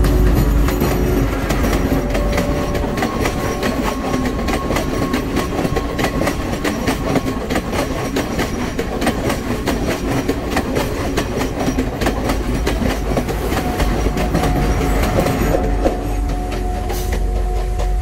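Diesel multiple-unit passenger train passing close by, its wheels clicking rhythmically over the rail joints above a deep, steady rumble. The clicking thins out in the last couple of seconds as the train moves away.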